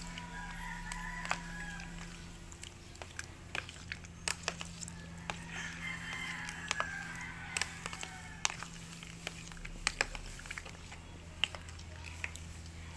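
A metal spoon stirring thick fruit salad in a plastic tub, making many small irregular clicks and knocks against the container. Chickens call in the background, and a faint steady hum runs underneath.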